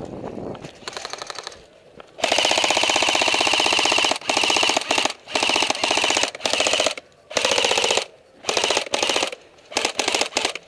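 Airsoft rifle firing full-auto in bursts of rapid, evenly spaced shots. There is a long burst about two seconds in, then a string of shorter bursts with brief pauses between them.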